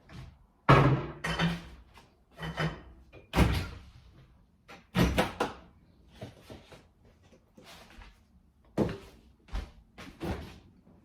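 Kitchen clatter from making oatmeal: a run of separate sharp knocks and bangs, about eight in all, spaced a second or more apart.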